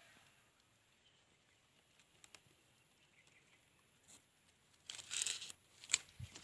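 A few faint scattered clicks, then a short burst of rustling about five seconds in, followed by a sharp click.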